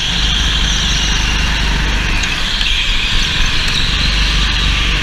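Go-kart engine running at racing speed, heard close up from the kart itself, with the note rising and falling slightly through the corners.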